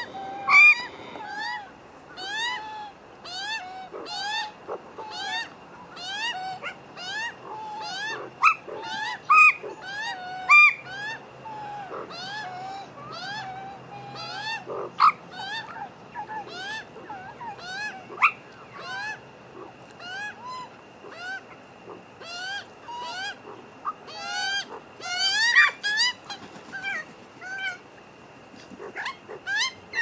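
A family of Australian magpies, adults and young, calling over and over: many short rising calls, one or two a second, several birds overlapping at times.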